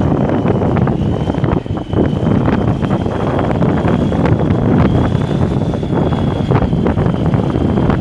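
Cummins 855NTA six-cylinder turbo diesel engine of a 1989 Case IH 9170 4WD tractor running steadily, with a thin high whine over the engine noise. Wind buffets the microphone.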